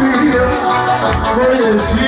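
Live Balkan folk music: a keyboard-played melody over a steady drum beat.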